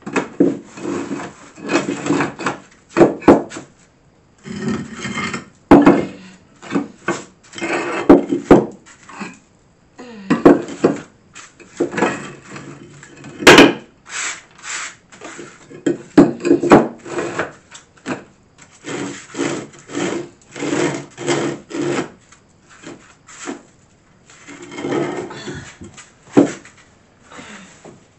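Old French cement tiles scraping and clacking as they are slid across the subfloor and knocked edge to edge in a dry fit, with a run of short scrapes and a sharp clack about halfway through.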